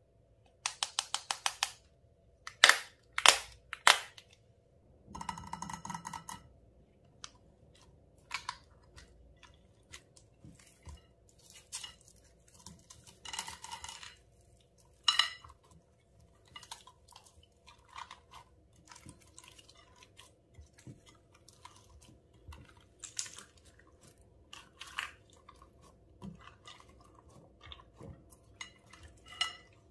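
Slime being kneaded and stretched by hand, making sticky clicks, small pops and squelches. A quick run of clicks comes about a second in, then three loud smacks, a short squeaky squelch, and a steady scatter of small sticky pops.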